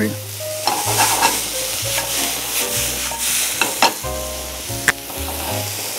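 Julienned vegetables sizzling as they sauté in a hot skillet, stirred and tossed with metal tongs that click against the pan several times.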